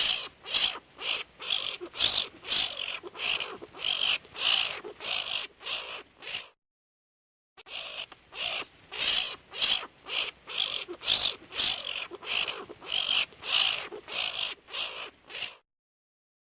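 An animal's call: a run of short, hissy, high-pitched chirps, between two and three a second. It breaks off for about a second, then runs again.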